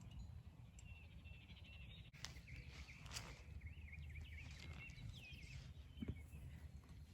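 A bird singing faintly, a quick warbling, twittering phrase lasting a few seconds, over a low outdoor background rumble with a few faint knocks.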